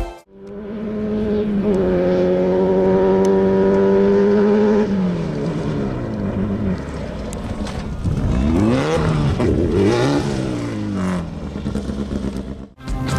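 Off-road race vehicle's engine running at steady high revs, then dropping in pitch about five seconds in and revving up and down over the following seconds; it cuts off abruptly near the end.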